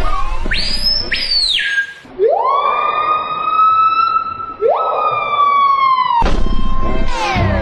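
A short, high swooping whistle, then two long siren-like wails that each rise quickly, hold steady and sag a little at the end.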